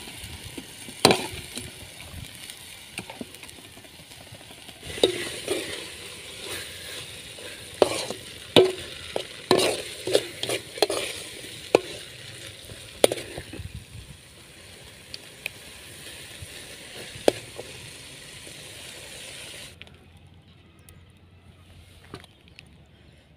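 A steel spoon stirring and scraping a thick tomato chutney mixture in an aluminium kadai over a wood fire, with sharp clicks and scrapes of metal on the pan over a steady frying sizzle. The sizzle stops suddenly near the end.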